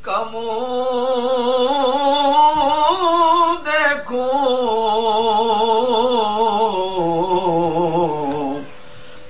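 A man's voice singing long, drawn-out notes with a wavering vibrato in unaccompanied naat recitation, broken by a short breath about four seconds in. The voice slides lower and stops near the end.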